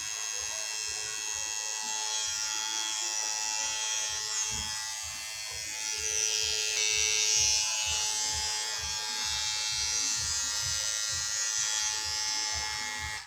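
Vintage T9 cordless hair trimmer running with a steady electric buzz, which cuts off suddenly at the end.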